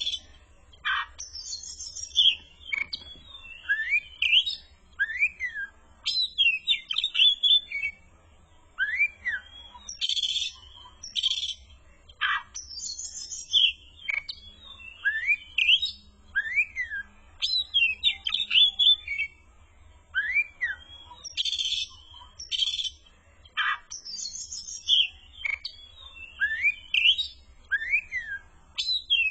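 Oriental magpie-robin (kacer) singing steadily, a varied song of clear whistles that rise and fall, mixed with harsh chattering notes and short sharp calls. The same arched whistle recurs every few seconds.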